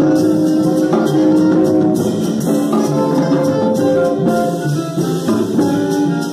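Small live jazz combo: an alto saxophone plays a melody of held notes over upright bass and a drum kit with cymbals.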